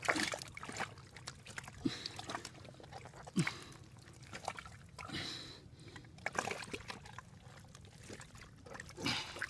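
Water splashing and trickling in irregular bursts, with several sharp slaps and knocks.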